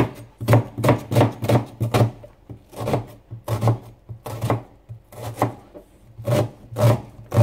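A kitchen knife chopping an onion on a plastic cutting board: a quick, irregular series of sharp knocks, each with a low thud, about two to three a second.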